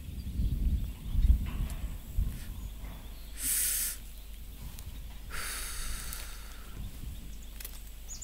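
Outdoor ambience with a low rumble, broken by two brief hissing sounds, the second one longer, about three and a half and five and a half seconds in.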